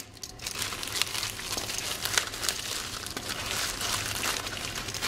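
Plastic packaging bag crinkling and rustling as it is handled to unwrap a new computer cooling fan, with many small irregular crackles.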